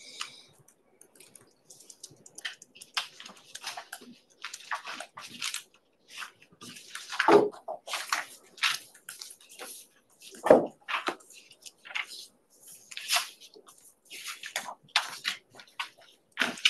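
Irregular rustling and crinkling of paper and bag material as someone rummages through a backpack and pulls out sheets of paper. Two louder knocks come about seven seconds in and again about three seconds later.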